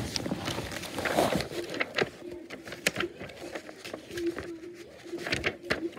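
Scattered clicks and rustles of handling as the phone and the DVD's paper booklet or case are moved about. Under them runs a low hum that keeps breaking off and coming back.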